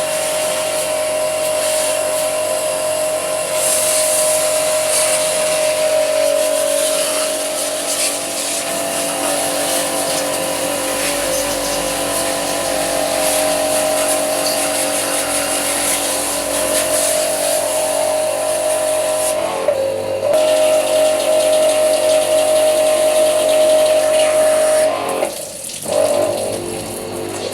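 Electric high-pressure washer pump motor running with a steady high whine while spraying. The pitch sags briefly about twenty seconds in and cuts out for a moment near the end before picking up again.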